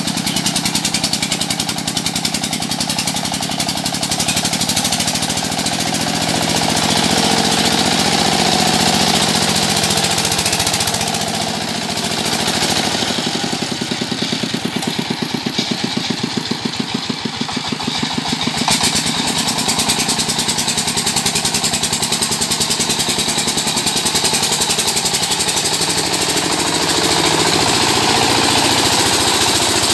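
Single-cylinder diesel engine of a công nông two-wheel tractor chugging hard with a rapid, even beat while it pulls a cart with riders through deep mud up a slope.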